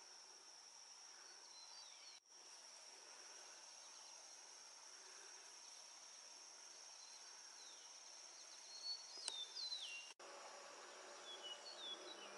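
Faint, steady, high-pitched insect drone from a summer meadow, with a few short falling bird chirps, most of them in the last few seconds. The sound cuts out briefly twice.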